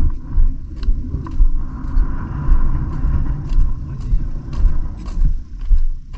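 Loud low rumble with irregular thumps about twice a second: wind and handling noise on a hand-held phone microphone carried at a walk.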